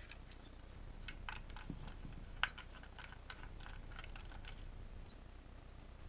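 Precision screwdriver unscrewing a small screw from a plastic candle module and circuit board: faint, irregular clicks and light scrapes of the tip in the screw head and of fingers on the plastic, with one sharper click about two and a half seconds in.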